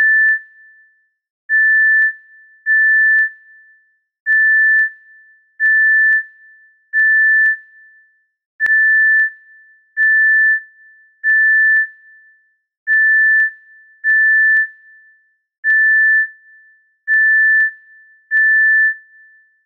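Heart monitor (ECG) beeping: a single steady high-pitched beep of about half a second, repeating at a regular pulse about every one and a half seconds.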